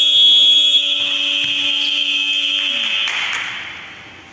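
Basketball game buzzer sounding one long, steady blast that stops about three seconds in, leaving the echo of the hall.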